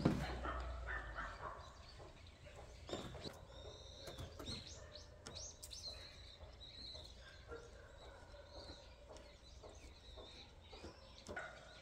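Small birds calling with short chirps and whistles, thickest in the middle of the stretch, over a few light knocks and rustles from a dome tent being pegged out and its fabric handled.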